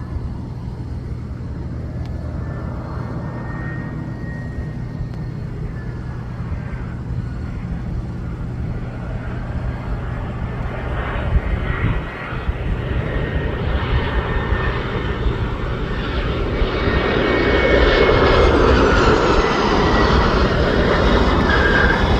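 An airliner's engines running, the roar growing louder through the clip, with a faint high whine over it.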